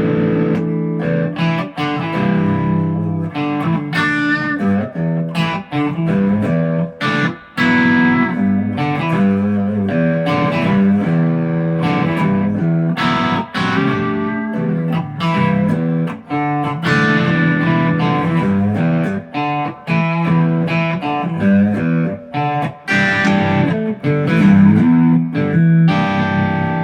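ESP LTD EC-256 electric guitar being played: a continuous run of picked notes and chords, with new notes struck several times a second.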